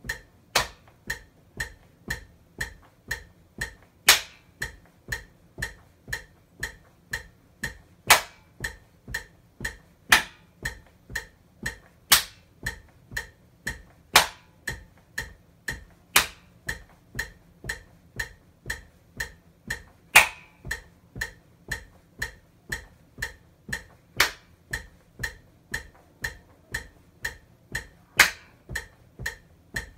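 Metronome clicking steadily at about two beats a second. Every two to four seconds a much louder, sharper click lands on the beat.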